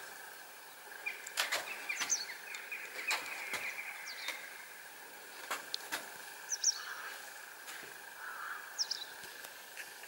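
Quiet outdoor ambience with small birds giving short, high chirps every couple of seconds, and a scattering of light clicks.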